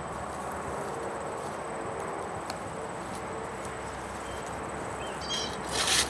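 Steady outdoor background hiss with a thin, high, steady tone running through it, and a couple of short, brighter sounds about five seconds in.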